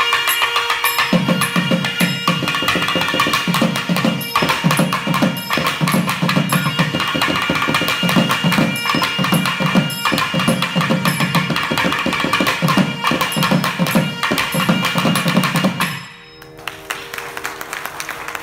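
Two nadaswarams playing a melody over a steady drone, with thavil drums joining in heavy, driving strokes about a second in. The music stops abruptly about 16 seconds in, leaving the drone and light applause.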